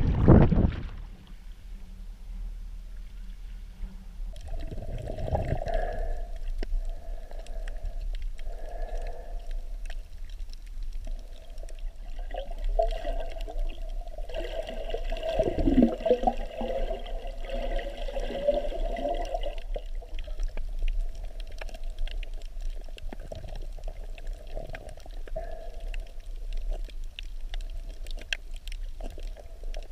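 Muffled water sounds picked up by a camera held underwater: uneven gurgling and sloshing over a steady low rumble, with scattered faint clicks.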